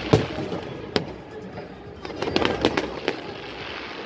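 Aerial firework shells bursting with sharp bangs: one at the start, one about a second in, and a quick run of cracks between two and three seconds in. Underneath is a steady background hiss of crowd noise.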